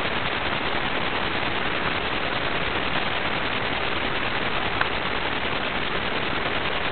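Steady, even hiss like static or white noise, unchanging throughout, with one faint click about five seconds in.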